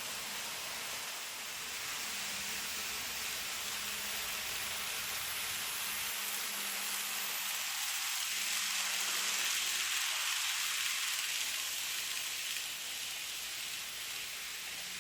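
N gauge model train running on the layout: a steady, hissing rumble of small wheels on track and motor, growing a little louder for a few seconds in the middle as it passes, then easing off.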